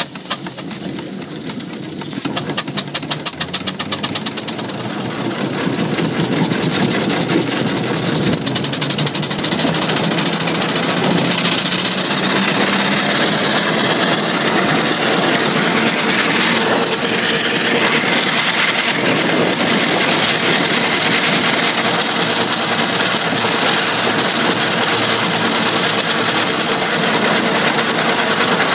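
Six-inch-scale steam traction engine running along the road: a quick, even beat of exhaust and moving parts with steam hissing. It grows louder over the first few seconds, then runs steadily.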